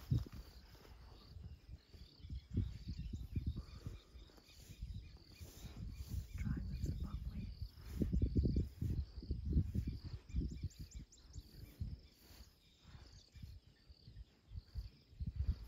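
Outdoor bush ambience: insects chirping steadily and faintly in the background, under irregular low rumbling and rustling noises that come and go, loudest in the middle.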